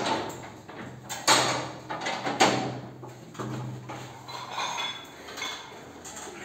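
Metal clanks and rattles from a plate-loaded hack squat machine as the lifter settles in and works its side handles: three sharp knocks with a ringing tail in the first few seconds, then lighter rattles. A steady low hum runs under the middle part.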